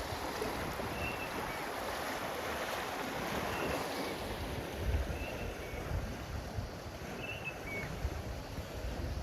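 River water rushing steadily, with low thumps now and then from wind or handling on the microphone. Short high chirps recur every second or two.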